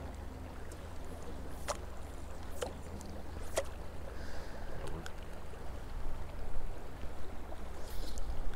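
Low rumble of wind on the microphone over the faint flow of river water, with a few sharp clicks in the first half.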